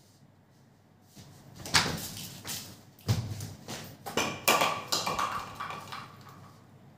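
A run of knocks and bangs, with a heavy thump about three seconds in and a clattering, ringing stretch near the middle.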